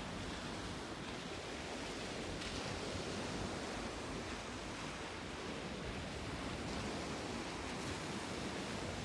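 Steady rush of sea waves on the shore, mixed with wind.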